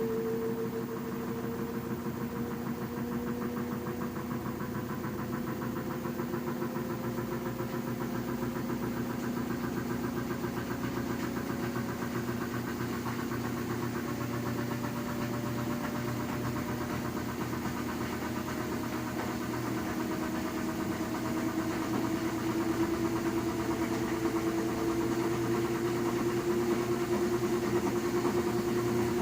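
LG washing machine running with a steady hum and a fast, fine pulsing vibration, while a whine slowly rises in pitch. This is the noise the owner was told is "normal".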